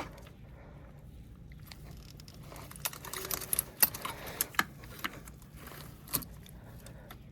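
Scattered small clicks and rattles of plastic and metal parts worked by hand as a cable end and its plastic retaining tabs are pushed and wiggled loose, most of them in a cluster near the middle, over a steady low hum.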